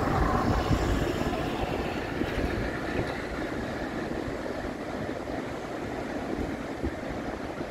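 Surf washing in and breaking around a fishing boat's hull in the shallows, with wind rumbling on the microphone: a steady, rushing noise, a little louder in the first second or so.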